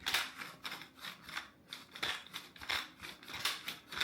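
Twist-action salt and pepper grinders being turned over food, a rhythmic gritty clicking of about three or four grinding strokes a second.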